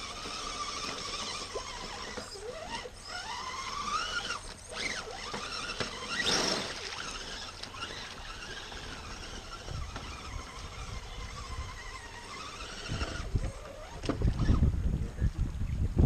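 Electric motor of an RC crawler truck whining as it drives over creek rocks, its pitch rising and falling with the throttle. Near the end there is low rumbling on the microphone.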